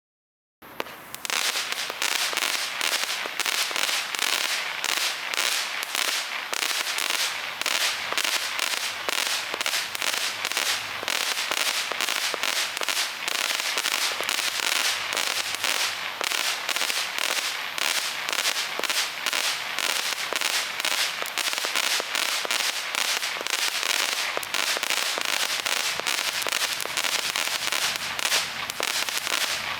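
Fireworks going off in a dense, unbroken crackle of small rapid bangs. It starts suddenly about half a second in and keeps a steady level with no pauses.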